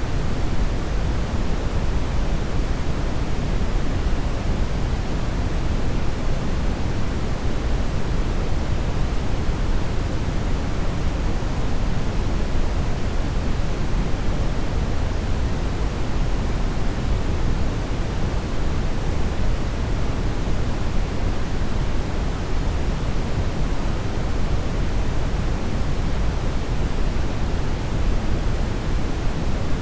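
Continuous brown noise: a steady, deep rush with most of its weight in the bass and little treble.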